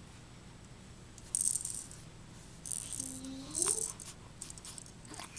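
A newborn's wrist rattle being shaken in two short bursts of rattling, about a second and a half in and again around three seconds in, with a few lighter shakes near the end.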